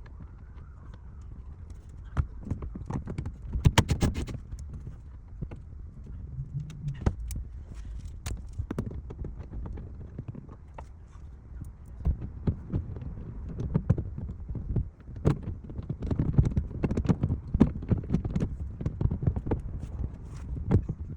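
Irregular knocks, clicks and clunks of hands and tools working on car interior parts, over a low steady rumble.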